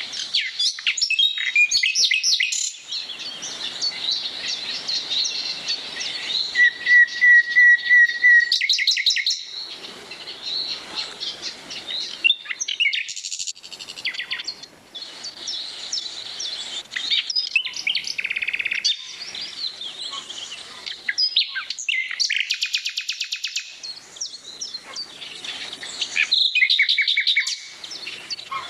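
Several songbirds singing and calling together in leafy trees, a busy mix of high chirps, fast trills and whistled phrases. About seven seconds in comes a run of quick, evenly repeated notes, and about twenty-two seconds in a fast buzzy trill.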